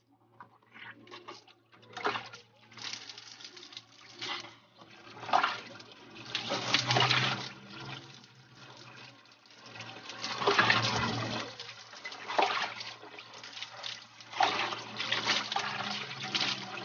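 Water splashing and pouring as a person bathes in a bathroom, in uneven splashes every second or two over a low steady hum.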